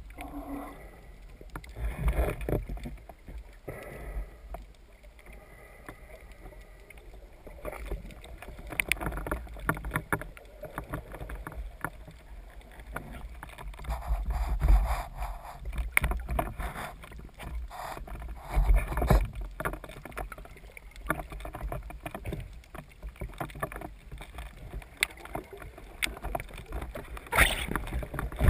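Water sloshing around a spearfisher's camera, with frequent clicks and heavier low thumps now and then.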